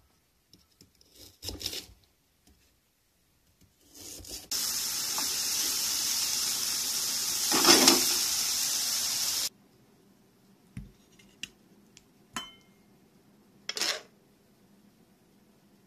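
A kitchen knife cutting through lotus root onto a cutting board a few times, then a steady loud sizzle of beef, lotus root and shimeji mushrooms frying in a frying pan for about five seconds, which cuts off suddenly. A few faint clicks and taps follow.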